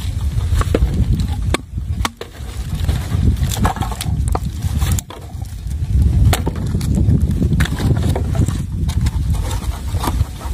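Plastic bottles and a plastic sack crinkling, crackling and clicking as litter is picked up and bagged, over a heavy, uneven low rumble.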